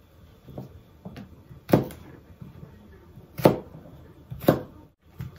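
Kitchen knife cutting through carrot pieces and knocking on a plastic cutting board: three sharp knocks, with a few fainter taps around them.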